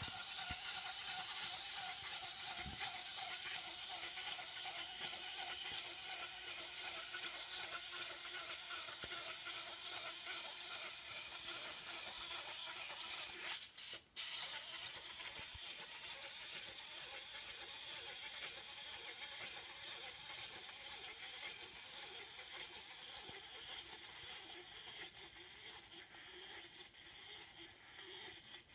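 Clockwork motor of a small plastic wind-up walking toy running: a steady, fast whirring buzz of spinning gears as the toy walks. It stops for a moment about halfway, starts again, and winds down near the end.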